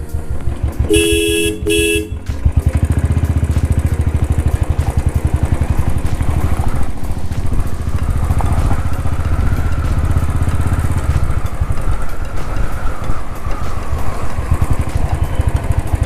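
A vehicle horn toots twice, then a Royal Enfield Thunderbird 350's single-cylinder engine runs under way with a fast, even beat, strong until about eleven seconds in and lighter after.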